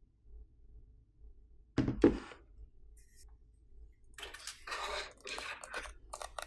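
Refox RS51 phone opener's suction-cup arm prying up the iPhone 17 Pro's glued screen. A sharp double thunk comes about two seconds in, then a couple of seconds of scraping and crackling.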